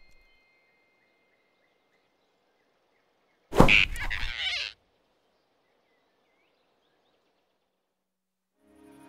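A cartoon sound effect of a sudden snatch as the giant rabbit grabs the flying squirrel, with a startled squeal, lasting about a second midway through an otherwise near-silent stretch. Soft music fades in near the end.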